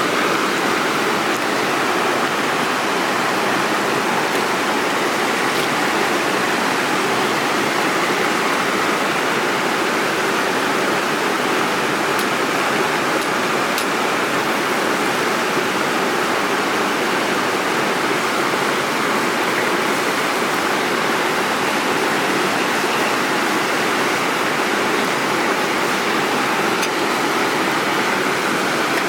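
Rushing stream water in a mountain gorge, a steady unbroken rush.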